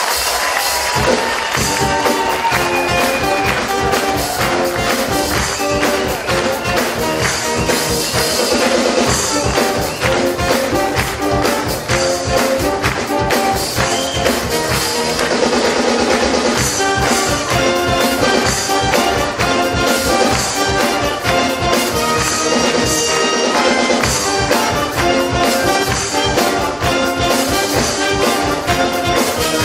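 Live band music with drums and brass-like melody over a steady, even beat.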